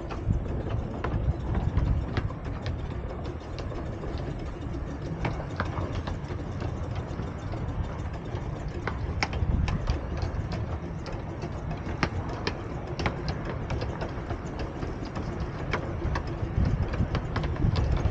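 Two miniature steam locomotives double-heading a 12¼-inch gauge train, running at speed with a steady low rumble. Scattered sharp clicks come through all along.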